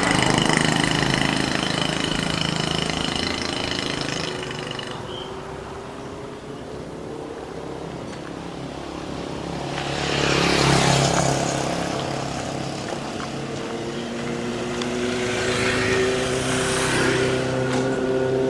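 Motor vehicle engines on a road: a running engine fades over the first few seconds, vehicles pass loudly twice, about ten and sixteen seconds in, and an engine rises in pitch near the end.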